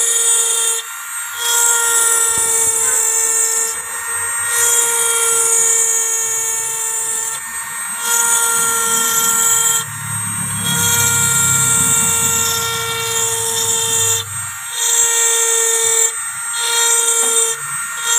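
Handheld electric mini grinder (rotary engraving tool) running at high speed with a steady whine as its carving bit cuts lettering into a board. The whine dips briefly every second or few as the bit is pressed in and eased off, and a lower grinding rumble joins in for several seconds past the middle.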